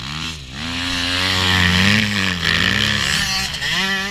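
Several motocross bikes passing close by on a dirt track, their engines revving up and falling off in pitch through a corner; loudest about two seconds in.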